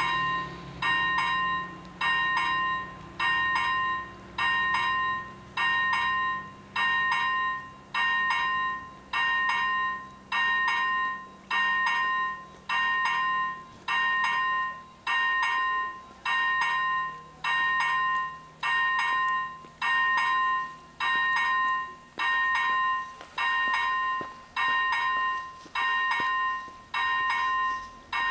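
Railway level crossing's electronic warning bell ringing steadily, about one ding a second, each ding dying away before the next, while the barriers are down to close the road.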